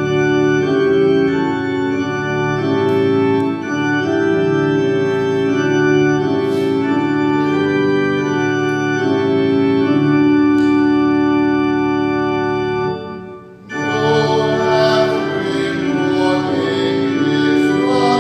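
Organ playing the opening of a hymn in sustained chords that change every second or so. It breaks off briefly about 13 seconds in, then resumes fuller.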